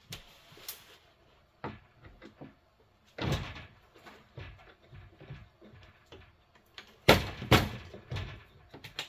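Scattered clicks and knocks of hand tools and panel parts being handled, with a louder knock about three seconds in and the loudest knocks about seven seconds in.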